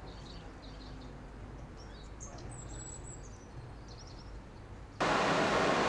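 Birds chirping over a quiet outdoor ambience, then about five seconds in a sudden switch to loud, steady industrial machine noise.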